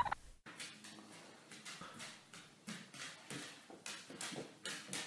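Faint, irregular clicking taps of a dog's claws on a hard floor as it walks, a few taps a second.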